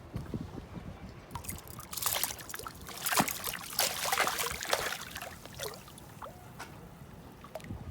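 Water splashing and trickling, loudest from about two to five seconds in, over a low steady rumble.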